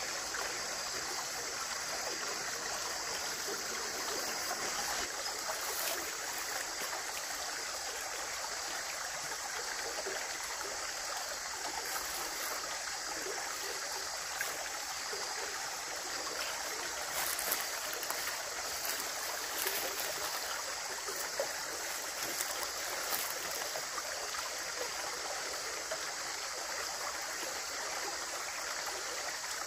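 Running stream water rushing and gurgling steadily, with a few faint clicks in the middle stretch.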